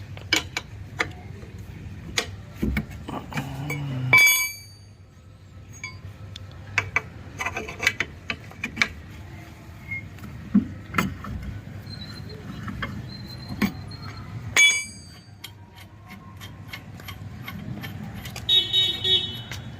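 Wrench clicking and clanking on a car's wheel nuts as they are loosened one by one, with two louder ringing metal clanks, about four seconds in and again near fifteen seconds, over a steady low hum.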